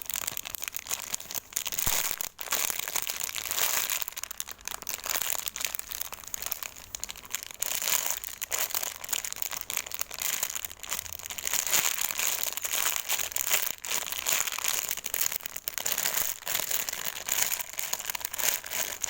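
Plastic crinkling and rustling, a continuous crackle of many small clicks, as a cat-shaped squishy toy in its plastic wrapping is handled.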